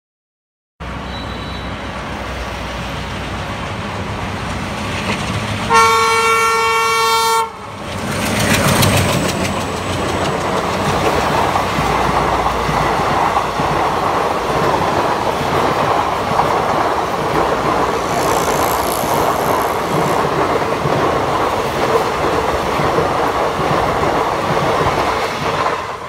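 WDG-3A diesel locomotive approaching with a growing rumble and sounding one loud, long blast of its air horn about six seconds in. Then it passes close with a sudden surge of noise, and its coaches roll by with a steady rumble of wheels on rail.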